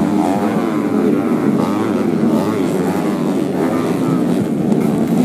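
Several racing underbone (bebek) motorcycle engines running hard at once on a dirt track. Their pitches overlap and rise and fall as the riders open and close the throttle through jumps and corners.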